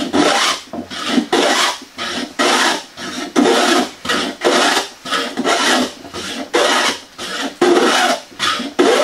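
Hand plane set for a deep cut, rasping across the grain of pine in quick repeated strokes, about two a second, each stroke taking off a heavy shaving.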